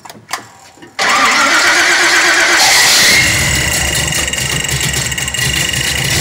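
Car engine cranked and firing up, starting suddenly about a second in and running loud and unevenly with a rapid low pulsing once it catches.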